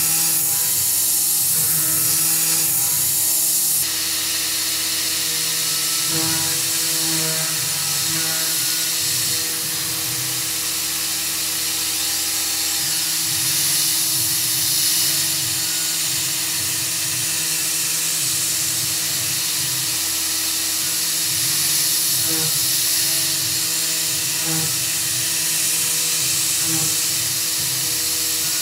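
Tormach 440 CNC mill cutting aluminum with a 3/16-inch carbide end mill: a steady spindle whine with a strong hiss from the spray nozzle aimed at the cut. The sound shifts about four seconds in.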